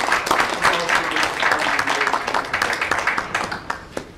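A small group of people applauding with dense, irregular hand claps that thin out and die away near the end.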